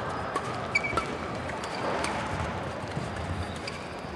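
Badminton rally in an indoor hall: several sharp racket hits on the shuttlecock and players' shoes squeaking and scuffing on the court floor, over the hall's steady background noise.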